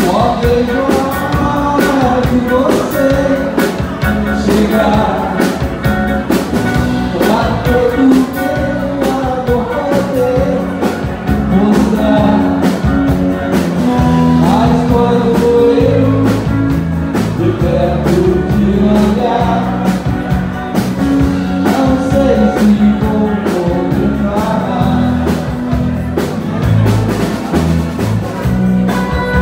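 Live dance band playing, with singing over a steady drum beat.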